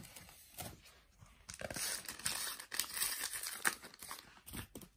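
A Panini Adrenalyn XL trading-card pack's wrapper being torn open and crinkled, with a run of crackling from about one and a half seconds in until just before the end.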